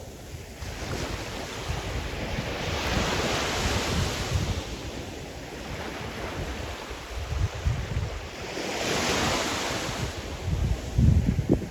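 Sea surf: waves breaking and washing ashore, swelling twice, about three and nine seconds in. Gusts of wind buffet the microphone with low thumps near the end.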